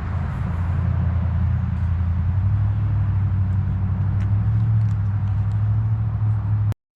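A motor vehicle's engine running: a steady low drone that steps up slightly in pitch about two and a half seconds in, then cuts off abruptly just before the end.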